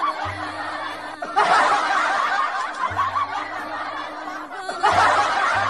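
A group of people laughing, in three long stretches with short breaks between them, over background music.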